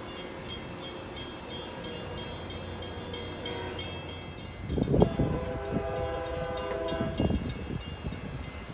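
A train's air horn sounds a steady chord for about two seconds, about halfway through, with gusts of wind buffeting the microphone. Before it there is a steady high hiss of train noise that cuts off suddenly.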